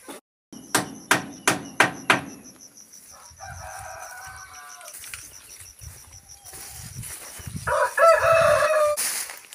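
Five sharp knocks, about three a second, then a rooster crows twice, the second crow near the end louder than the first.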